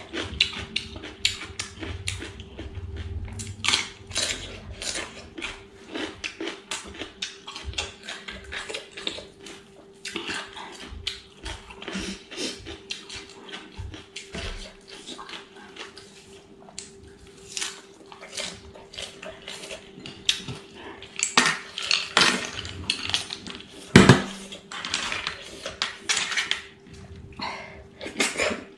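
Close-up mukbang eating sounds: chewing and crunching raw cucumber and chives, with snail shells and fingers clicking against a steel plate, and one sharper knock near the end. A faint steady hum runs underneath.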